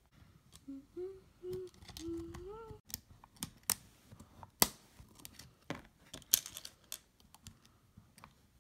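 A child humming a short tune for about two seconds, then a scatter of light clicks and taps from plastic beads being handled and threaded onto a bracelet-maker ring.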